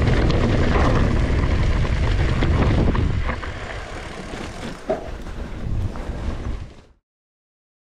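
Wind buffeting the action camera's microphone as a mountain bike rolls down a dirt singletrack, with tyre noise and rattling from the bike. The rumble eases about three seconds in, leaving scattered clicks and rattles, and everything stops abruptly about seven seconds in.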